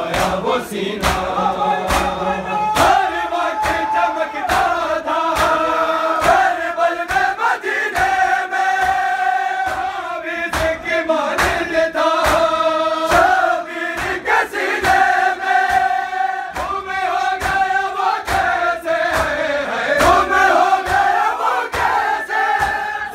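A group of men chanting a noha, a Shia mourning lament, in unison, with a steady run of hand slaps on chests (matam) keeping the beat.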